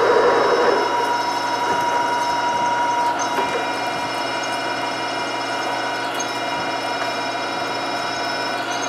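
Sharp LMV-50 turret milling machine running with a steady whine as a 43/64-inch drill bit cuts through 6061-T6 aluminum, enlarging a pilot hole. A faint tick comes about every three seconds.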